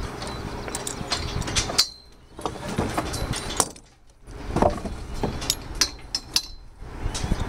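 Irregular sharp knocks and metallic clinks over a rough, rumbling background noise. The background dips out briefly three times.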